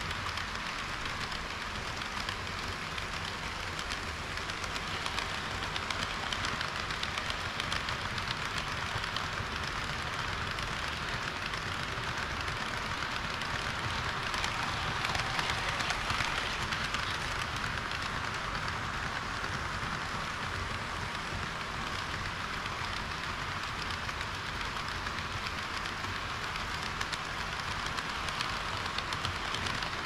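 HO-gauge model trains running, a red KiHa 40 series railcar model and a train of tank wagons: a steady, even rattle of small metal wheels on the track with motor hum.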